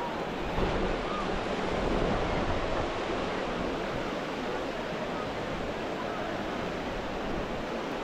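Ocean surf washing onto the beach: a steady rushing, with a wave swelling louder about two seconds in.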